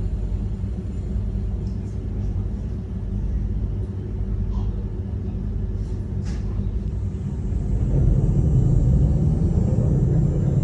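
Electric commuter train running, a steady low rumble with a hum of motor tones. About three-quarters of the way in it gets louder, and a set of high steady whining tones joins it.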